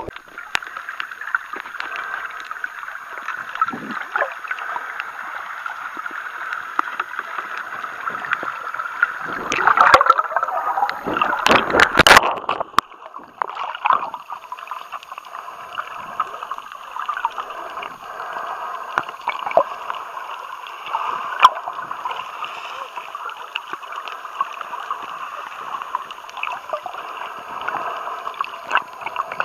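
Water heard through an underwater camera while snorkelling: a steady rushing and gurgling, with a cluster of louder splashes about ten to twelve seconds in as the camera nears the surface.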